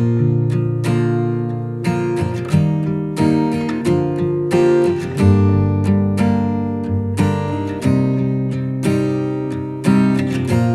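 Background music: a strummed acoustic guitar playing chords at a steady pace.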